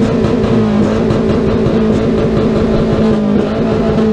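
Car engine and exhaust held at high revs, a loud steady high-pitched drone, the revs dropping away right at the end.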